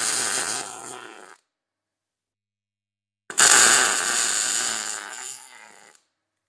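Wire-feed welding arc crackling through two short welds that join thin expanded metal to a steel plate. The first weld stops about a second and a half in; the second strikes sharply about three seconds in and runs for nearly three seconds. Each is loudest at the strike and tapers off before it cuts out.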